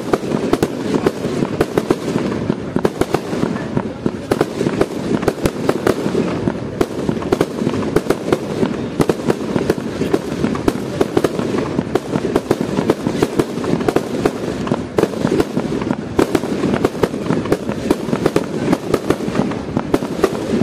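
Fireworks display: a dense, unbroken barrage of sharp bangs and crackling from many bursts going off in quick succession.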